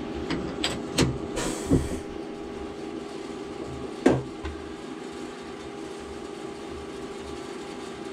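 A chamfer mill's tool holder is fitted into a CNC mill spindle: a few metal clicks and knocks, a short hiss, then a sharp clack about four seconds in. A steady machine hum runs underneath.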